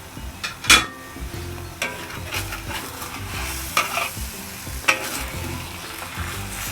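Food sizzling in a pan while it is stirred, with a utensil clinking sharply against the pan about five times, the loudest just under a second in.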